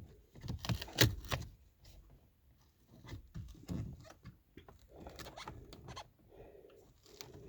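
Velcro hook-and-loop fastener rasping in several short bouts as a small controller is pulled off and pressed into place.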